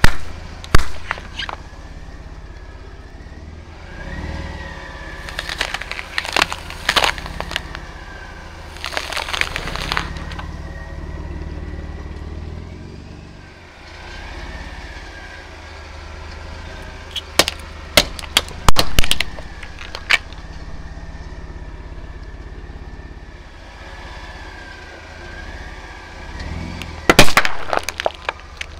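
A big off-road truck tire slowly crushing a series of plastic drink bottles, slime tubs and an aerosol can, with the truck's engine running steadily underneath. The crushes come in several spells of sharp cracks and pops. The loudest bursts are at the very start and near the end, where the aerosol can splits and sprays foam.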